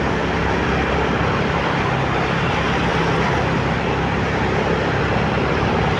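Motorcycle being ridden at steady speed: a constant engine hum under a steady rush of wind and road noise on the bike-mounted microphone.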